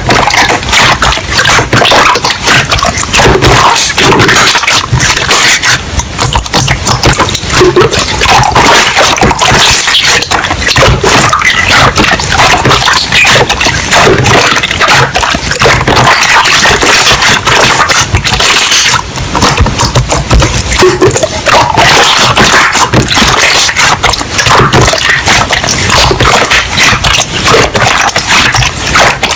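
Slime being squished and stretched by hand close to the microphone, with dense, continuous crackling and popping.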